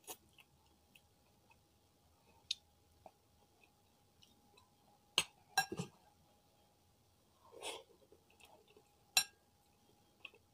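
A metal spoon clinks against a ceramic bowl of chicken porridge several times as it is stirred and scooped, a few of the clinks ringing briefly, with soft chewing sounds in between.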